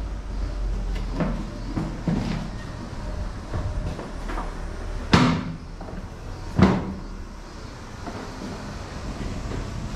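Door sounds: a few soft knocks, then two loud thumps about a second and a half apart, over a low steady hum.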